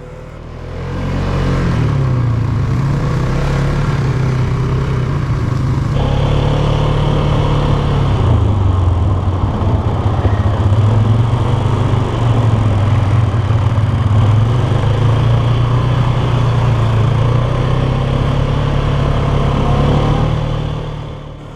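ATV (four-wheeler) engine running as it is ridden, its pitch rising and falling with the throttle. The sound swells up about a second in and fades out near the end.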